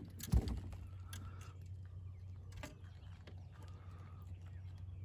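A single dull, low thump about a third of a second in, over a steady low hum, with a few faint clicks.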